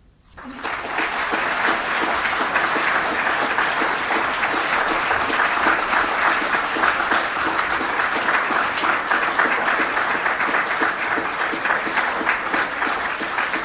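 Audience applauding: many hands clapping, starting about half a second in and holding steady.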